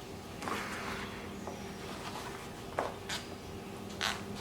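Tire lever sliding around a bicycle rim under the tire bead, levering the bead off: a few light scrapes and clicks over a faint steady hum.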